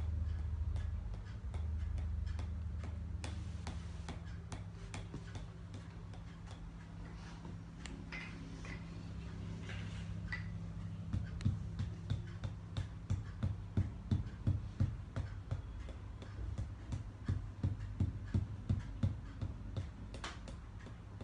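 Tok sen massage: a wooden mallet tapping a wooden stick held against the body, in an even rhythm of about two taps a second. The taps are light at first and become sharper and louder about halfway through.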